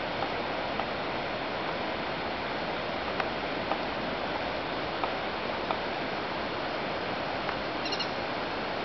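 Steady rushing outdoor noise with a few faint ticks scattered through it, and a brief high chirp about eight seconds in.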